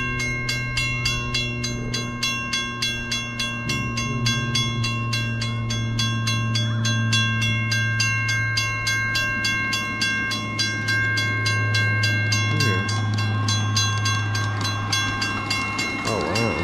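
A 7½-inch-gauge ride-on miniature train passing slowly: a steady rhythm of clicks, about five a second, from the wheels over the rail joints, over a steady hum from the train.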